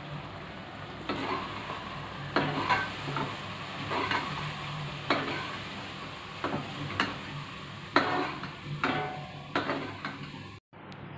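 Metal ladle stirring and scraping mutton against the side of a metal cooking pot, a stroke roughly every second, over a steady sizzle of the meat in oil.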